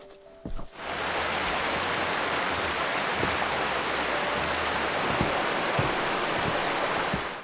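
Mountain stream rushing over rocks, a steady wash of water that starts about a second in and cuts off just before the end, with a few faint knocks in it.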